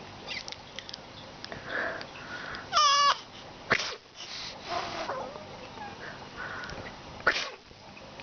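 A baby squealing with laughter: one bright, wavering squeal about three seconds in and softer laughing sounds after it. Between them come short, sharp bursts of breath, a person's sneezes, which set the baby laughing.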